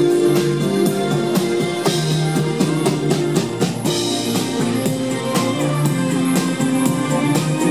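Live band playing loud amplified music: a drum kit keeping a steady beat under electric guitars.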